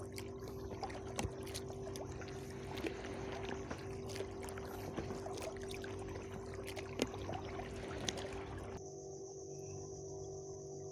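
Small boat under way on the sea: water rushing and splashing along the hull, with scattered small knocks and a steady low hum. About nine seconds in it cuts to a steady high insect buzz over calm water.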